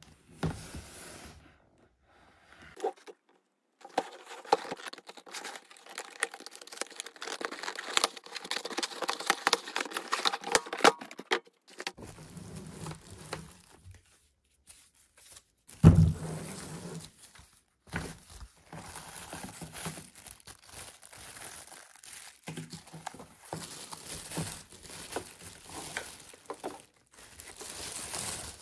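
Packaging being handled and unwrapped: irregular crinkling and rustling with small clicks, and one loud knock a little past halfway.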